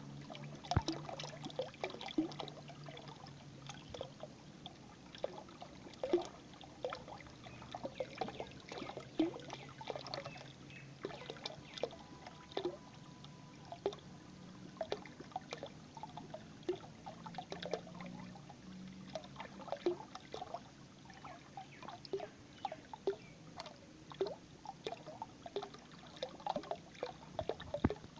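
A thin stream of water pouring into a body of water, with a steady splashing trickle and many quick, irregular bubbly plinks as bubbles form and burst.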